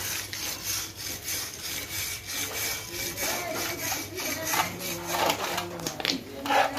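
A flat steel bar scraping along the coils of a rolling-shutter spring, a rhythmic rasping at about two strokes a second, with louder strokes near the end.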